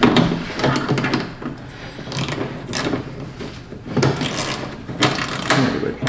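Hard plastic bumper trim being worked into place by hand and with a small screwdriver: irregular plastic clicks and scrapes, with several sharper clicks spaced about a second apart.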